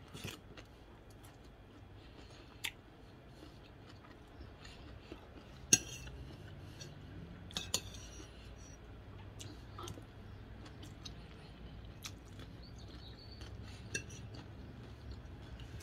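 Metal fork and spoon clinking and scraping against a plate while eating, in sparse light clicks every second or two, the sharpest about six seconds in.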